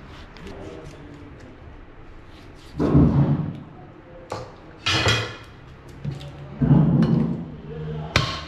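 A heavy meat cleaver chopping through a raw leg of meat onto a wooden chopping block. There are several heavy chops, roughly two seconds apart, each a sudden knock.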